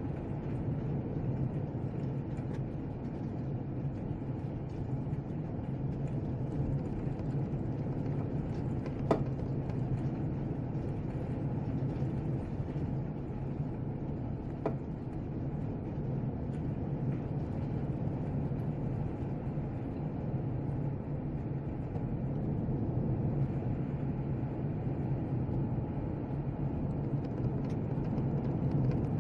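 Heavy thunderstorm rain pouring down steadily, with a low even rumble beneath it. A sharp tick stands out about nine seconds in, and a fainter one a few seconds later.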